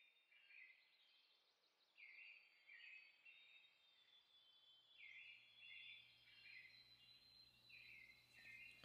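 Faint songbird song: a short phrase of several quick notes, repeated about every three seconds over a quiet background hiss. A low steady hum comes in about five seconds in.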